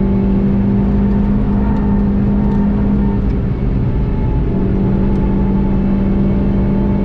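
Volkswagen Golf 7.5 GTI TCR's turbocharged 2.0-litre four-cylinder engine running hard and steady at high revs at about 200 km/h, heard from inside the cabin over a haze of wind and tyre noise. The engine note drops away for about a second midway, then comes back.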